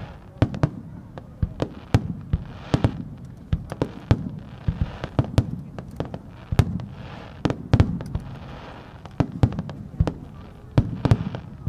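Aerial firework shells bursting in quick succession over open water. There are sharp booms about two a second, some bunched close together, each trailing off in a low rolling echo.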